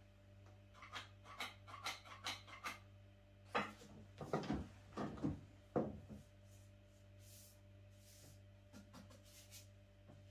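Kitchen items being handled on a wooden table: a run of light clicks and taps, then several louder knocks and scrapes in the middle, and a few faint ticks near the end. A steady low hum sits underneath.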